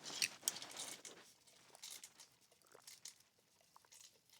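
Faint eating sounds: chewing with small crackly clicks and smacks, busiest in the first second, then sparse.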